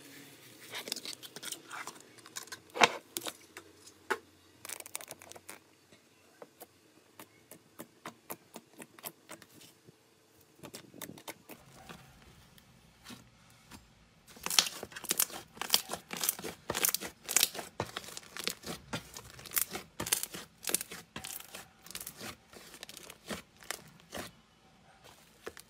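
Slime being squished, pressed and folded by hand, making a run of sharp, sticky clicks and pops. They are sparse in the middle and come thickest and loudest in the second half.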